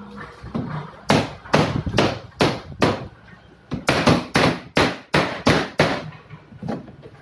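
Repeated hammer blows, about two a second, each ringing briefly: five strikes, a short pause, then a faster run of strikes.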